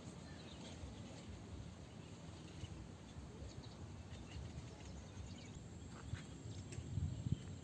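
Faint swamp-side ambience: a low, steady rumble with scattered soft clicks, and a thin high insect whine that comes in past the middle. A louder low thump sounds near the end.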